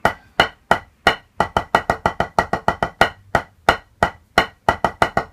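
Wooden drumsticks playing on a drum practice pad: a slow quintuplet (fivelet) rudiment exercise, each stroke a sharp tap. It opens with a few evenly spaced single strokes, and from about a second and a half in the strokes come closer together as double-stroke diddles mix in.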